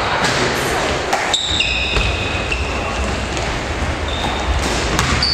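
Basketball game in a large gym hall: the ball bouncing and players' sneakers squeaking on the wooden floor, with short high squeaks about a second and a half in and again near the end.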